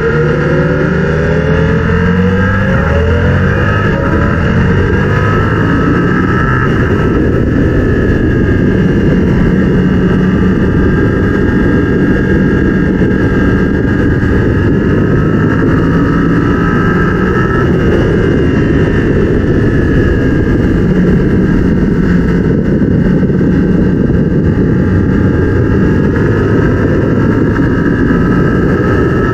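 2022 Yamaha R7's 689 cc parallel-twin engine running hard on track, its pitch climbing over the first few seconds and then rising and falling repeatedly with throttle and gear changes, over a constant loud rush of noise.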